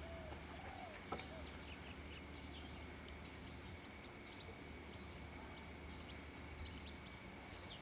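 Faint rainforest ambience: scattered bird chirps over a steady insect drone, with a low hum underneath and a small click about a second in.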